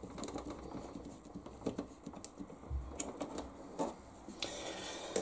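Small screwdriver driving a screw that fixes a switch into a plastic RC boat canopy: a run of light, irregular clicks, with a few sharper ticks as the part is handled.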